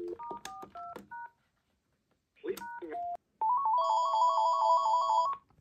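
Panasonic corded phone base: the end of a dial tone, then a quick run of four keypad touch-tones, two more short tones about two and a half seconds in, then the base and its cordless handset ringing with a fast electronic warbling ring for about two seconds before it cuts off.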